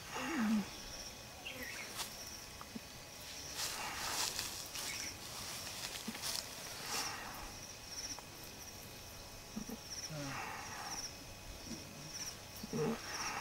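Outdoor ambience with short groups of high chirps repeating throughout, and a few brief rustles.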